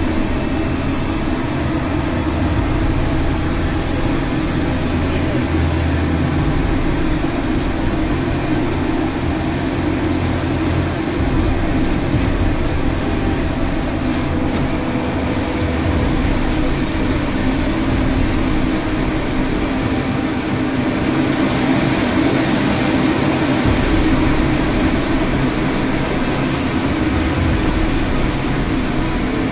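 A loud, continuous rushing roar with a low hum beneath it, growing a little brighter about twenty seconds in.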